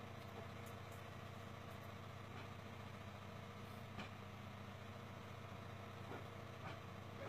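Steady low background hum, with a few faint ticks about four and six seconds in.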